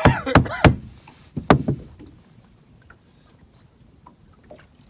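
A man's voice briefly at the start, then a quiet low wash of water against a small fishing boat's hull, with a few faint clicks.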